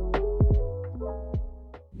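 Electronic background music: held synth chords with drum hits, fading out near the end.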